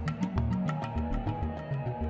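Background music: a moving bass line under a quick ticking beat of about five ticks a second.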